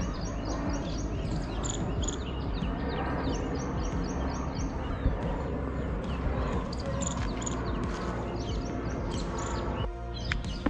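Many birds chirping and calling at once in woodland, with runs of quick, high-pitched repeated notes over a steady outdoor background hiss.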